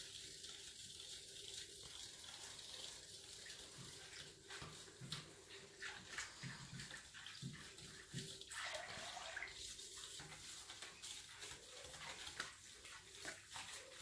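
Whisk stirring a watery vinegar and baking soda mixture in a stainless steel bowl: faint liquid sloshing with many light clicks of the wires against the metal.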